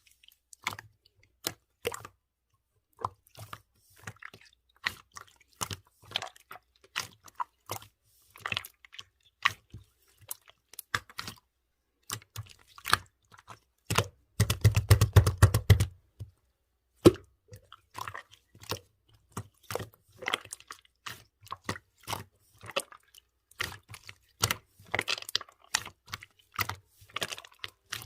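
Clear slime being squished and poked by hand: a steady string of short, sticky clicks and pops, with a louder run of rapid squishing a little past halfway.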